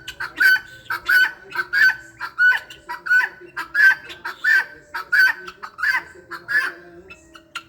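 Hen-like clucking: short calls repeated evenly, about every 0.7 s, over a steady low hum.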